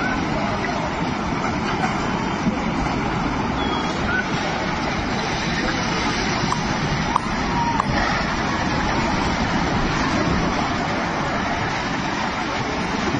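Steady, loud roar of a landslide as multi-storey buildings collapse down a hillside, with a couple of brief sharp knocks.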